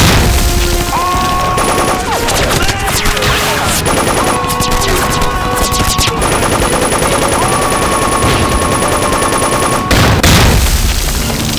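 Rapid machine-gun and rifle fire from a battle scene, with long held tones sounding over the shooting. A loud blast comes about ten seconds in.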